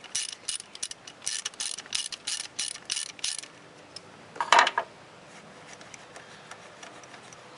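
Socket wrench ratchet clicking in quick strokes, about four or five clicks a second, as the nut comes off the starter's battery-positive terminal post; the clicking stops after about three and a half seconds, and a single louder metallic clink follows about a second later.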